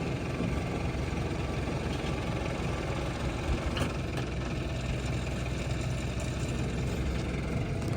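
Engine of a farm loader idling steadily, with one short knock about three and a half seconds in.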